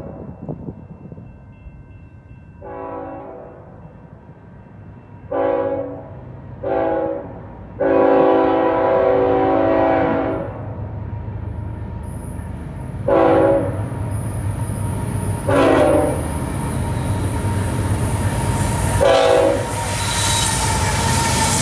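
Horn of a CN freight train's lead diesel locomotive sounding about seven blasts as the train approaches, one of them held for about two and a half seconds. From about halfway, the locomotives' engines and wheels on the rails build into a loud, steady rumble as the lead units pass close by.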